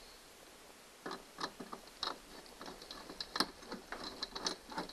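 Irregular light clicks, a few a second, starting about a second in, as a gear-track screw is tightened down to lock a transducer arm's adapter into a kayak's track.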